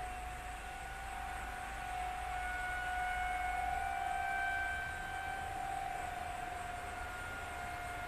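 Outdoor tornado warning siren sounding a test, one steady wailing tone. It swells louder around the middle and then eases back.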